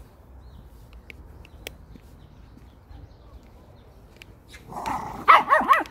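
A Pomeranian barking in a quick run of about four high yaps near the end, each rising and falling in pitch.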